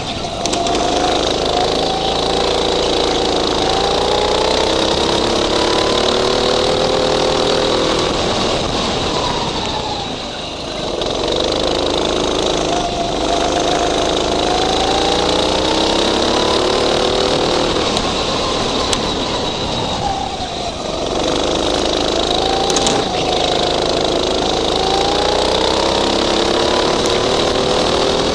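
Go-kart engine heard from on board, its pitch climbing steadily as the kart accelerates along the straights, then falling away as it lifts off for a corner, about three times over.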